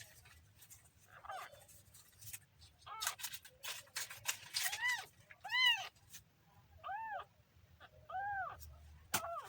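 Kitten meowing repeatedly: about seven short, high meows, each rising and then falling in pitch, with brief clicking and rustling noises between some of them.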